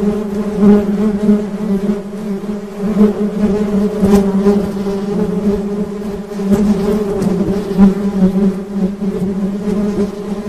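Honey bees buzzing: a continuous droning hum that wavers slightly in pitch and loudness.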